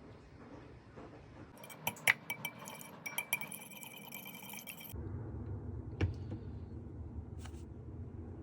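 Sharp clinks and taps on a glass bowl with a brief ringing tone, clustered between about two and five seconds in, as the egg mixture is prepared. Then a low steady hum with one single knock about six seconds in.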